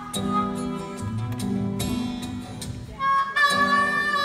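Live acoustic guitar strumming chords with a harmonica playing a melody over it, the harmonica coming in much louder about three seconds in.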